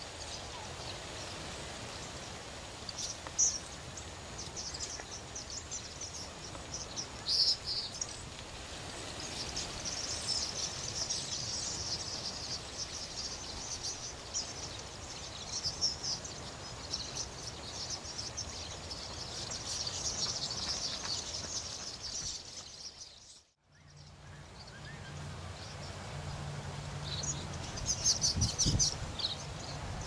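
Many small birds chirping over a steady outdoor hiss. The sound cuts out for a moment about three-quarters of the way through, then returns with a low hum underneath and a cluster of chirps near the end.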